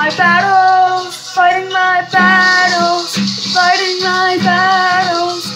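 A teenage boy singing held, wordless notes into a microphone over a backing track of a pop-rock worship song, with a shaker rattling in the accompaniment.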